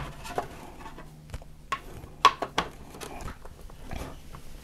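Cables being plugged into the back of a PC, including a DisplayPort cable into the graphics card: a string of light clicks and knocks, about half a dozen over the few seconds.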